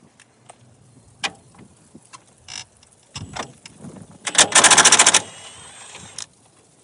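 Cordless impact wrench hammering in one rapid rattling burst of about a second, after a few scattered clicks and knocks from work in the engine bay.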